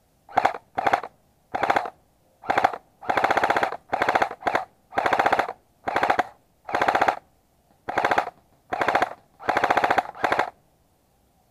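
Airsoft gun firing on full auto in about a dozen short bursts, each a fast run of sharp clicking shots with brief pauses between.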